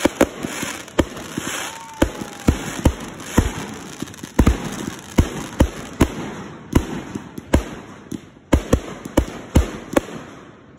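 Aerial fireworks firing in quick succession, shot after shot launching and bursting, with about two or three sharp bangs a second over a continuous crackle.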